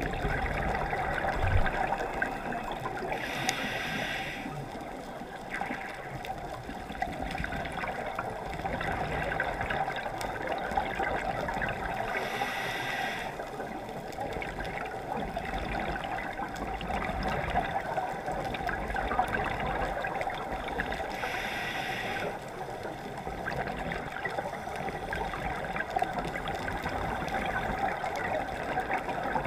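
Muffled underwater hiss through a waterproof camera housing, broken three times, about nine seconds apart, by a second-long rush of a scuba diver's exhaled bubbles from the regulator.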